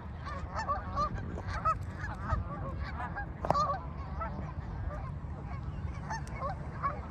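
A large flock of geese honking, many short calls overlapping, over a steady low rumble.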